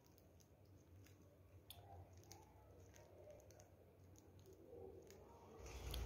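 Near silence with faint, scattered clicks of a budgie pecking at its food.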